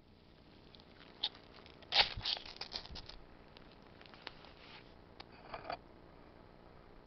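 BlastMatch ferrocerium-rod fire striker being pushed down so its scraper rasps along the rod, throwing sparks into tissue tinder. There is a loud run of quick scrapes about two seconds in, then a few single scrapes and clicks later.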